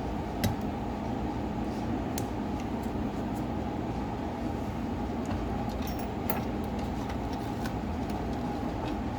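A few small sharp clicks, the loudest about half a second in, from tools and parts being handled during a smartphone teardown, over a steady low hum.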